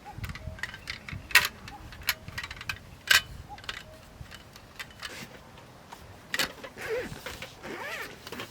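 Irregular light clicks and knocks, with the two sharpest about a second and a half and three seconds in, and a few faint chirp-like sounds near the end.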